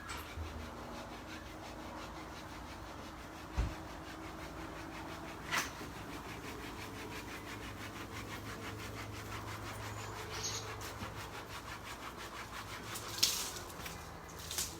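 Hand saw cutting through wood, a steady run of rasping strokes, with a single knock a few seconds in and a few sharp clicks near the end.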